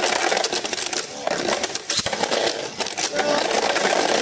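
Two Beyblade Burst spinning tops whirring and scraping across a plastic stadium floor, with many sharp clacks as they collide.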